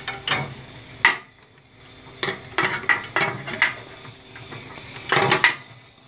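Scattered sharp clicks and metallic clinks at a wood-fired steam boiler's firebox and ash pan door, with a quick cluster of them about five seconds in.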